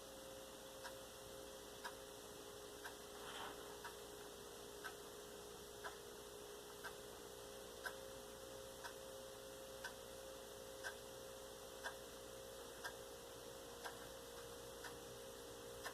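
Faint, evenly spaced ticking, about one tick a second, over a steady low hum.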